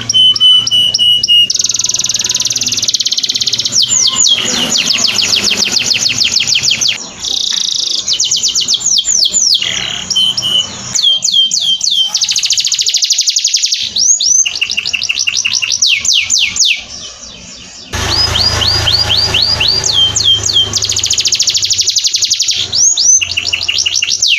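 Domestic canary singing loudly in fast rolling trills of rapid, high, downward-sweeping notes, broken by two short pauses.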